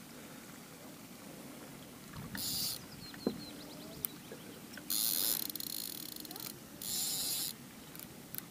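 Three short hissing bursts, the middle one longest, while a large hooked carp is being played on rod and line.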